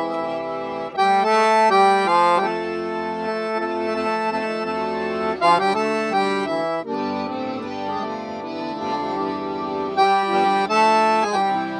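Two piano accordions playing a tune together: held chords under a moving melody, swelling louder about a second in and again near the end.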